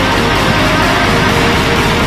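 Loud, continuous background music.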